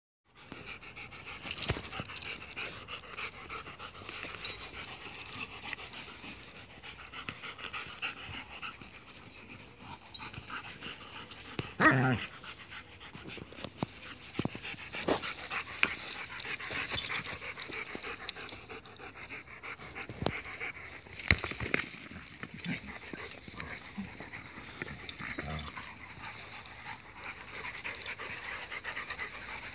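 Dogs panting hard as they play with a football, with scattered clicks and scuffs as they mouth and push the ball. There is one louder short sound about twelve seconds in.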